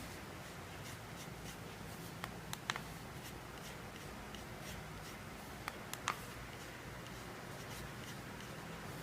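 Light plastic clicks of keys or the touchpad button being pressed on an H9 mini wireless keyboard, in two small clusters, over a faint steady low hum.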